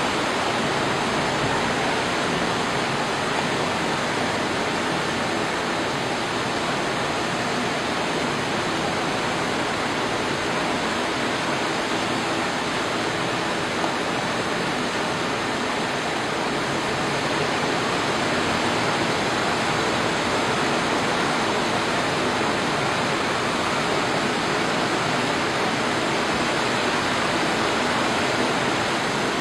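Steady, even rushing noise of water that does not rise or fall.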